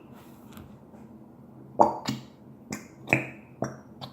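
Sharp taps and knocks of small hard objects being handled, about six, irregularly spaced through the second half; one near the three-second mark rings briefly.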